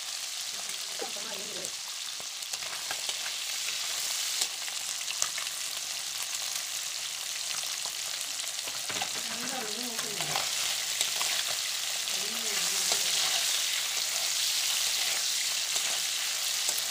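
Small fish frying in hot oil in a wok: a steady sizzle that grows a little louder about four seconds in, with a few light ticks, and a steel spatula stirring the fish near the end.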